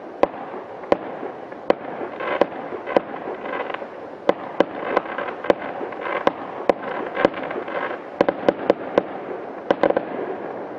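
Aerial fireworks going off: sharp bangs at irregular intervals, about one or two a second, over a steady background crackle, with a quick run of bangs about eight seconds in.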